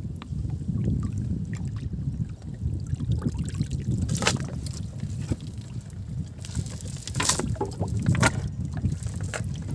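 Wet cast net being hauled by hand out of the water into a wooden boat: water splashing off the net, with a few sharp splashes and knocks, the loudest about four and seven seconds in, over a steady low rumble.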